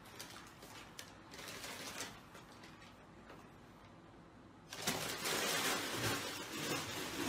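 Paper bag crinkling and rustling, with light irregular taps, as a cat wriggles out of it on a wooden floor. The rustling grows louder about two-thirds of the way through.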